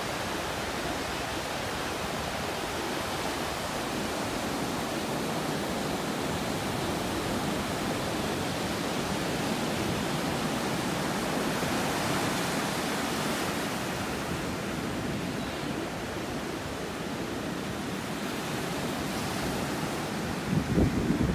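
Sea surf breaking and washing up a sandy beach: a steady, even rush of waves.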